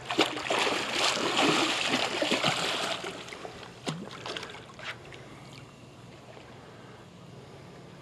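A big hooked fish, which the angler takes for some kind of buffalo, splashing and thrashing at the water's surface, loudest for about the first three seconds, then dying down to a few scattered splashes.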